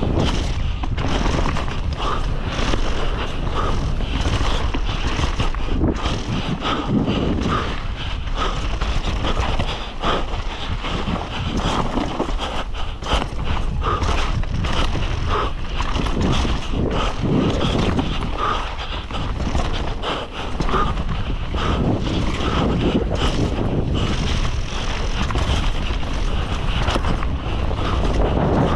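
Downhill mountain bike ridden fast down a loose dirt trail: wind buffeting the microphone, tyres crunching and skidding on the dirt, and the bike rattling and knocking over the bumps.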